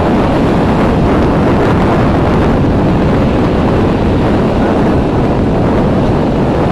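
Strong coastal wind buffeting the microphone: a loud, steady, low rumbling rush with no letup.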